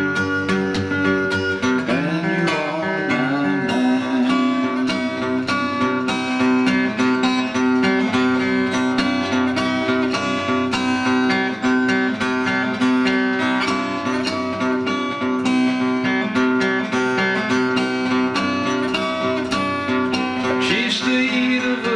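Seagull steel-string acoustic guitar played solo, steady strummed and picked chords in an instrumental break between sung verses.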